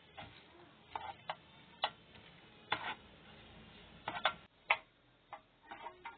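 A pastry brush swiped over oiled aluminium foil lining a loaf pan: a string of short, irregular scrapes and crinkles of the foil, about eight strokes.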